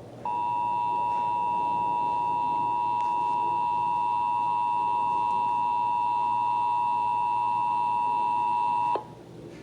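Emergency Alert System attention signal: a steady two-tone chord of 853 and 960 Hz that starts just after the beginning and cuts off abruptly about nine seconds in. It announces an EAS message, here a Required Monthly Test.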